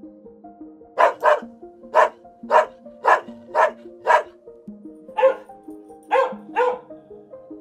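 A dog barking: about ten short, sharp barks in loose pairs and singles, over gentle background music playing a simple melody.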